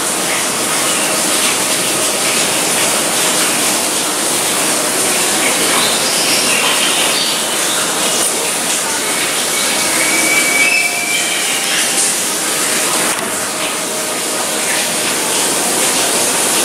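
A steady, loud rushing hiss with faint distant voices in it.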